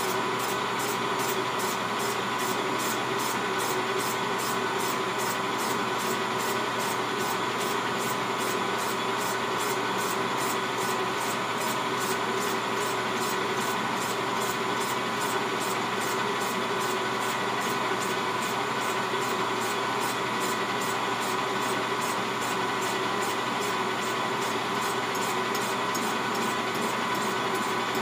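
Metal lathe running steadily, turning an aftermarket Stihl MS 660 chainsaw cylinder held in the chuck, squaring the cylinder's face to the bore. A steady whine, with a faint, even ticking over it.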